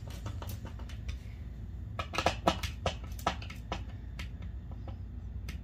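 Hand screwdriver tightening screws into a plastic drawer slide rail on a particleboard panel: a string of irregular light clicks from the driver turning in the screw heads, coming thicker about two seconds in.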